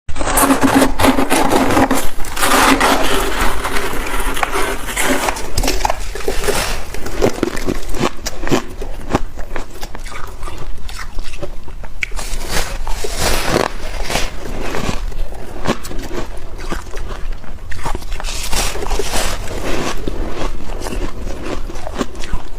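Freezer frost being scraped and crunched, a dense run of sharp, crisp crunches with stretches of rasping scraping.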